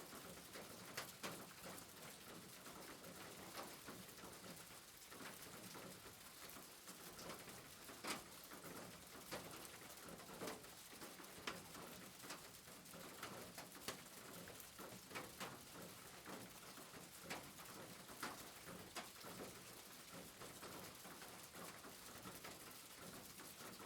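Soft steady rain hiss with irregular drops and drips ticking.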